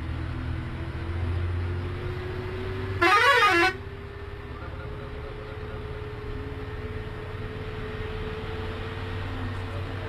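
A short blast of a tour bus's melody air horn about three seconds in, its pitch warbling up and down, over the steady drone of the bus engine heard from the cab.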